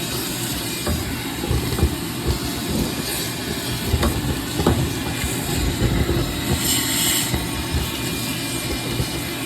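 A furnace running: a steady low rumble with scattered irregular knocks and a brief hiss about seven seconds in.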